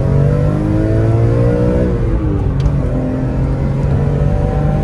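BMW E46 M3's S54 straight-six engine accelerating: its pitch climbs for about two seconds, drops sharply at a gear change, then pulls again and rises slightly.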